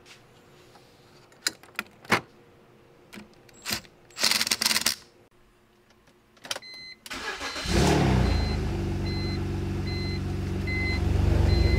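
A few clicks and a short rustle, then the BMW E46's M54 inline-six cranks and catches about seven and a half seconds in and settles into a steady idle. The idle sounds much louder because of an exhaust leak where the front pipe is not bolted to the header. A warning chime beeps about twice a second over the idle.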